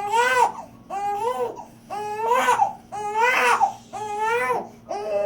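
Newborn baby, just over a week old, crying in a steady rhythm of about one cry a second, each cry rising and then falling in pitch.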